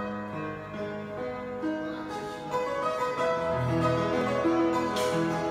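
Grand piano being played: slow, ringing chords with held notes, the bass growing fuller partway through. A single sharp click sounds about five seconds in.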